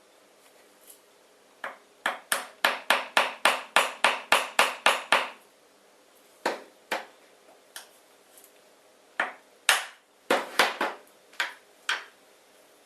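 Hammer tapping on a part of a home-built CNC machine: a quick run of about a dozen sharp taps, then several more spaced singles and pairs.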